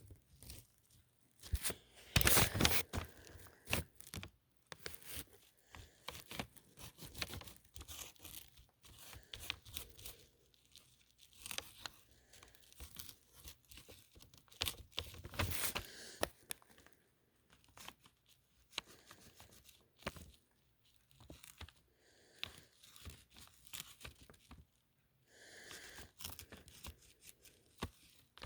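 Hands crinkling and rustling something, with many scattered sharp clicks; the loudest bursts come about two seconds in and again around fifteen seconds.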